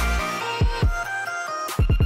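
Background music with a beat of deep bass hits that drop in pitch, over held notes; the hits come close together near the end.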